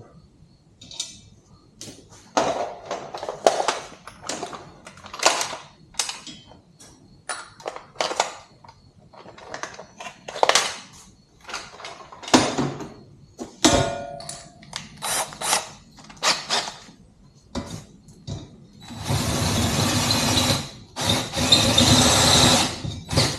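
Scattered knocks and clinks of metal parts and tools being handled, then a power drill running in two bursts of about two seconds each near the end, drilling out a bolt hole through the hollow tube of a swing arm.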